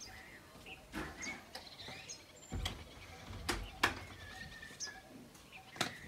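Small birds chirping here and there, with a handful of sharp taps or knocks (the loudest about four seconds in) and a brief low rumble around the middle.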